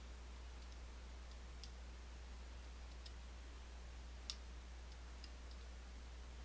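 A few faint, sharp metal clicks of a lock pick probing the pin tumblers of an M&C Move lock under tension, checking whether each pin is set. The sharpest click comes about four seconds in, over a low steady hum.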